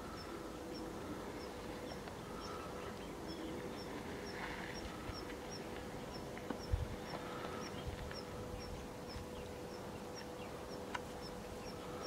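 Quiet outdoor ambience: a high, regular chirping about three times a second over a faint steady hum, with one low thump a little past halfway.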